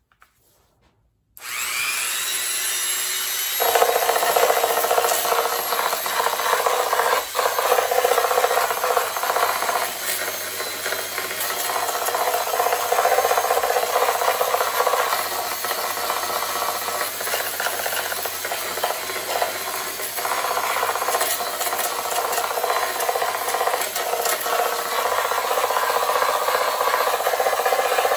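Electric power sander switched on about a second in, its motor spinning up with a brief rising whine, then sanding down dried Bondo body filler on a fiberglass headlight part: a loud, steady, rough rubbing noise.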